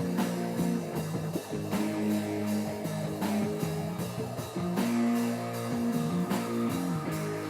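Rock music led by electric guitar playing a repeating chord pattern, with drum hits about every second and a half.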